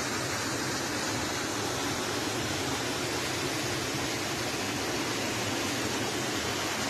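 Steady rushing of a muddy flash-flood torrent pouring down a street, an even, unbroken wash of water noise.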